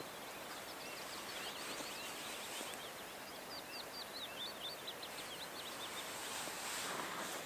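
Small birds chirping in a quick run of short, high calls over a steady outdoor background hiss.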